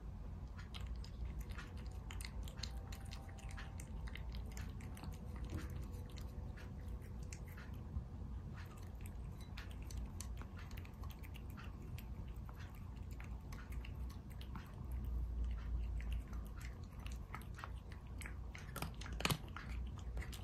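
Elderly cat chewing dry food (kibble) from a stainless steel bowl: many small irregular crunches and clicks, one a little louder near the end. She seems to eat the kibble without her earlier pain.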